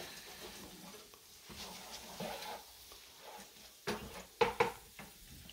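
Wooden spatula stirring beans in a frying pan, with a few sharp knocks of the spatula against the pan about four seconds in.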